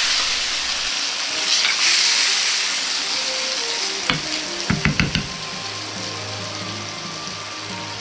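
Hot stir-fry of pork, eggplant and green pepper in sauce sizzling. A metal wok ladle clicks and knocks a few times about halfway through, as the food is ladled onto a plate.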